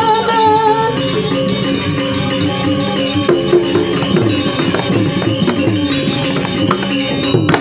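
Balinese gamelan ensemble playing a dense, busy passage with many quick metallic strokes. A singer's held, wavering note fades out about a second in.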